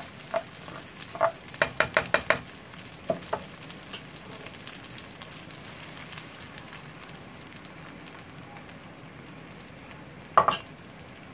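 Egg frying with a steady sizzle in a non-stick frying pan, with a quick run of utensil taps and scrapes against the pan in the first few seconds. A single sharp knock about ten seconds in.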